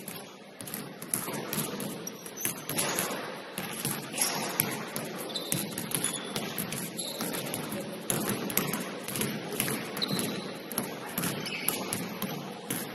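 Basketballs bouncing on a hardwood gym floor: repeated sharp knocks, irregularly spaced, as players dribble.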